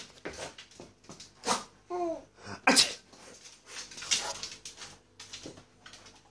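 Young baby laughing in a string of short, breathy panting bursts, with a brief squealing coo about two seconds in.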